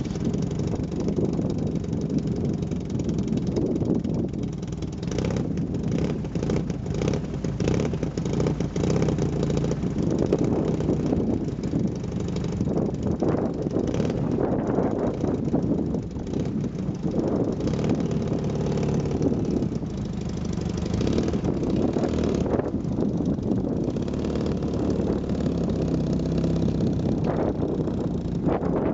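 Honda N600's small air-cooled two-cylinder engine running under hard driving, its pitch rising and falling repeatedly as it is revved up and eased off.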